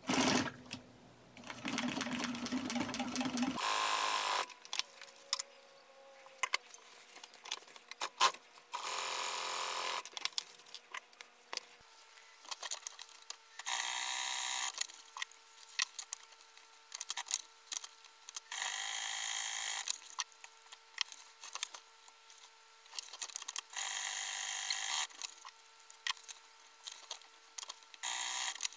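Industrial sewing machine stitching leather seat-cover panels in short runs of about a second each, starting and stopping repeatedly, with small clicks between runs. From about twelve seconds in, a faint steady hum runs under the stitching.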